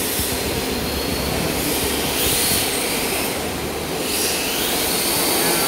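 Radio-controlled drift cars running: electric motors whining and tyres sliding over a smooth floor, with a whine rising in pitch about two seconds in and again about four seconds in.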